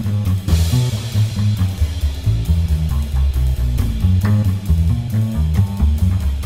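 Instrumental band music: a bass guitar line stepping from note to note under guitar, with a drum kit keeping time and a cymbal crash about half a second in.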